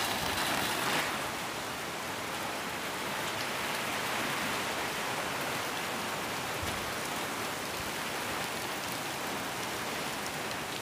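Steady rain shower falling, a little heavier in the first second.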